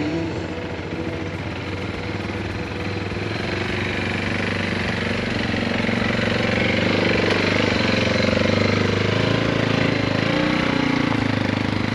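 ATV engine running under load as it tows a log across bare dirt, growing louder as it comes near, loudest around the middle, then easing slightly.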